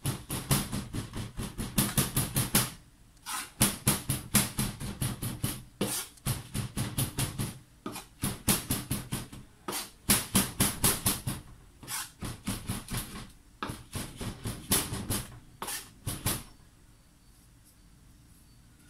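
Chef's knife chopping sage leaves on a wooden cutting board set on a steel worktop: quick runs of knocks, several a second, with short breaks between runs. The chopping stops a couple of seconds before the end.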